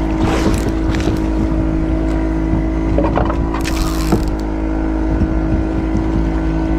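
An engine on the fishing boat runs steadily at one pitch. Over it come a few short clicks and knocks from the spinning reel and rod as the angler works the jig.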